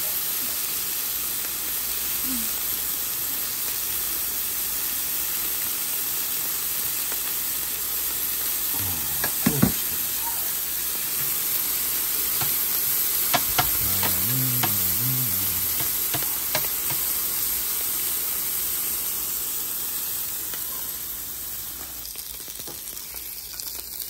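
Pork belly sizzling on a slotted stainless steel Korean BBQ grill plate, a steady hiss of fat frying that gets quieter near the end. A few sharp clicks of metal tongs and a short low hum come partway through.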